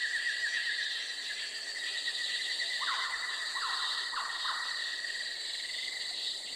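Nature ambience: a steady high, fast-pulsing trill and insect buzzing throughout, with four short calls around the middle.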